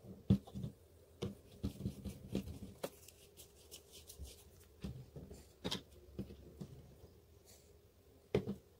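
Bottles and a plastic tub being handled and set down on a tabletop: scattered light clicks and knocks, with a louder knock near the end.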